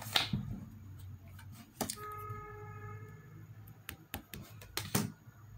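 Tarot cards being handled: a few soft clicks and taps as a card is picked up and held, with a short steady hum about two seconds in.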